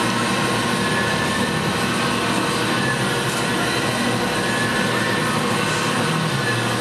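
CNC-converted metal shaper running, its drive motor and gearing making a steady mechanical noise with a faint whine.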